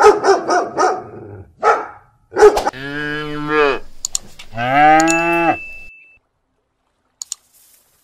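A puppy yapping in a quick run of short barks, with one more bark a moment later, followed by two long cow moos of about a second each.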